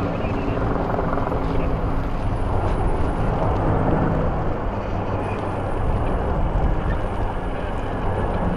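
Steady engine drone under a loud rushing noise, its low hum fading around the middle and coming back near the end.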